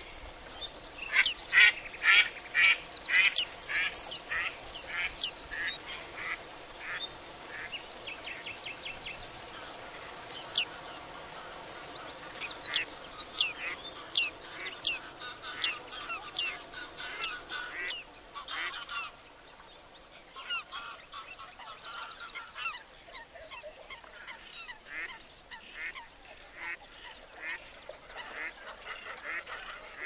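Waterbirds calling in a composed wetland soundscape: a busy chorus of short, sharp calls, many in quick repeated runs. The calls thin out briefly about twenty seconds in, then pick up again.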